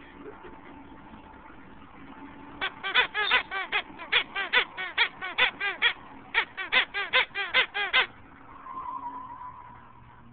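A bullmastiff chewing a squeaky toy, making it squeak rapidly, about four squeaks a second, in two quick runs with a brief pause between.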